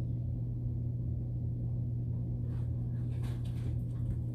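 A steady low hum with nothing else going on, and a couple of faint rustles in the second half.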